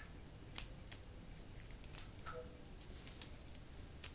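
Faint handling noise: a few scattered light clicks and taps as cables and small packaging parts are handled.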